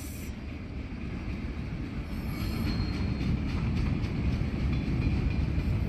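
Alaska Railroad freight train of flatcars loaded with highway trailers rolling steadily past, a continuous low rumble of wheels on rail that grows a little louder, with a faint high wheel squeal around the middle.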